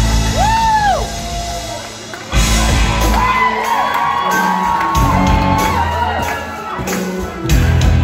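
Live rock band playing out the end of a song in a large hall, with a loud full-band hit about two seconds in followed by repeated drum hits. Over it the crowd whoops and cheers.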